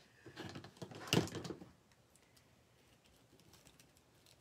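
Hands handling purple wreath mesh on a cross wreath board: a short run of soft rustling and small clicks, loudest about a second in, then only faint ticks.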